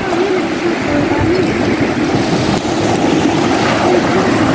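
Engine of a watercraft running out on the water, its pitch rising and falling a little, over steady surf and wind noise.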